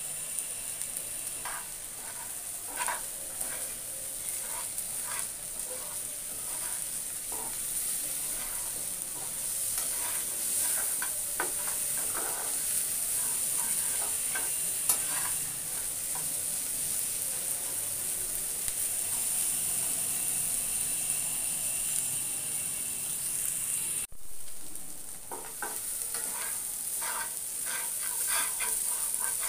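Shredded Bombay duck (loitta) fish frying with a steady sizzle in a black kadai while a steel spatula stirs and scrapes against the pan in repeated strokes. The sound cuts out briefly about 24 seconds in, then the stirring goes on.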